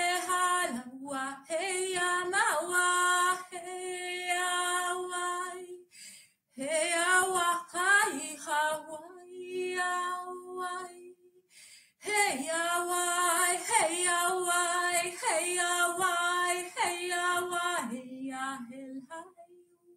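A woman singing unaccompanied wordless 'light language' vocables in long held notes that slide into pitch. She sings three phrases, with short pauses about six and twelve seconds in.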